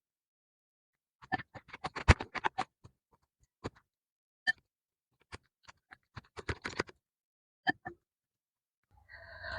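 A utensil clinking and scraping against a bowl while rice is mixed: clusters of quick sharp taps with short pauses between them.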